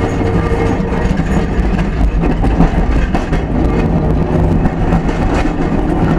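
FM-class tram running along the track, heard through an open floor hatch right above its bogie: a steady rumble of the wheels on the rails with the traction motor's hum, and scattered faint clicks.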